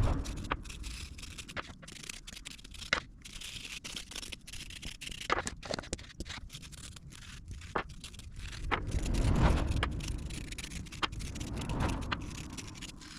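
Hand work on car parts: scattered sharp clicks and taps over a scraping, rubbing noise, with a louder low scrape swelling about nine seconds in.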